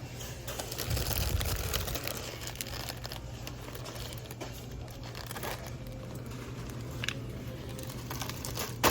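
Crinkling and rustling, as of something being handled, densest in the first couple of seconds and then sparser, with a sharp click near the end.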